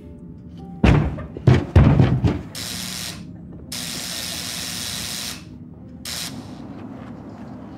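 Heavy knocking, about five loud thumps in a second and a half, followed by bursts of hissing rush, from a horror film's soundtrack.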